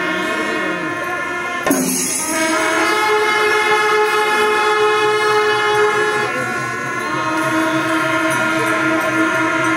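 Kerala temple ensemble of kombu, the C-shaped brass horns, blowing long blaring tones together with brass pipes, several pitches sounding at once like a held chord. A sharp blast about two seconds in brings in a new chord.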